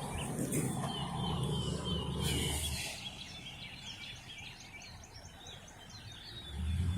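Small birds chirping in quick repeated notes over a low rumble that fades about three seconds in and comes back near the end, with a brief hiss partway through.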